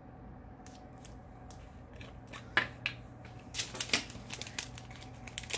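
Sharp small clicks and plastic crinkles from handling diamond-painting drill bags and containers. They are sparse at first and turn into a busy run of clicks about three and a half seconds in.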